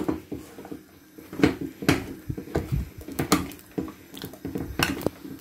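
Wooden spatula stirring and pressing a stiff banku dough in a metal saucepan: irregular knocks of the spatula against the pan over the soft, heavy thuds of the dough as it is worked. The dough has grown very hard.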